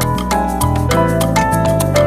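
Background music: an upbeat Latin, salsa-like track with a bass line and a steady percussion beat.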